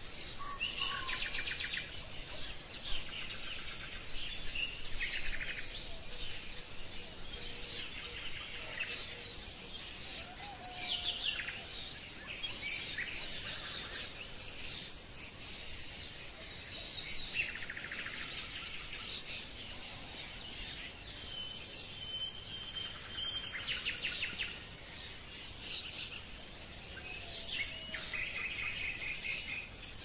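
Several birds chirping and trilling again and again, with one held whistled note about two-thirds of the way through, over a steady background hiss.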